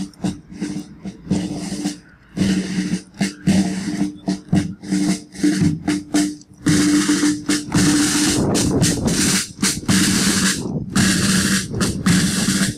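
Military brass band playing a march as it marches: brass holding steady notes over regular bass-drum strokes.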